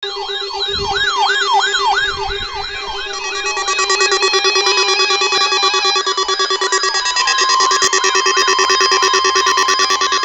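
Several siren tones layered at once: a wail sweeping up and down about twice a second over stepping and faster warbling tones, with a steady tone joining about seven seconds in.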